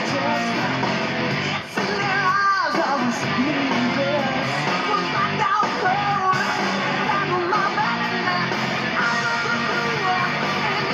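Hard rock music with electric guitar and a lead singer, played from a television showing a music video.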